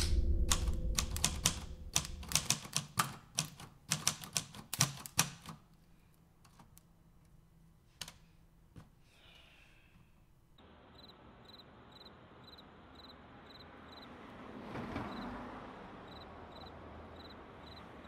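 Manual typewriter keys clacking in an uneven run of strokes for about five seconds, then a few isolated strokes, while a low rumble fades out under the first strokes. The second half is a faint steady hiss that swells briefly.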